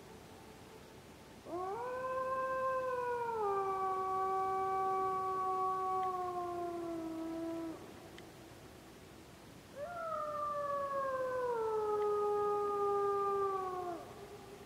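Wolf howling: two long howls of about six and four seconds. The first holds a steady note, then drops in steps. The second rises briefly, then slides steadily downward before breaking off.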